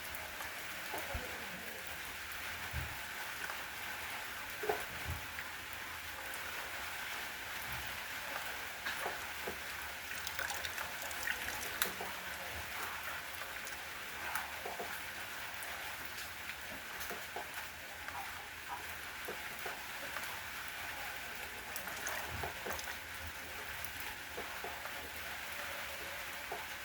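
Steady rain falling, an even hiss with scattered louder ticks of single drops striking a surface.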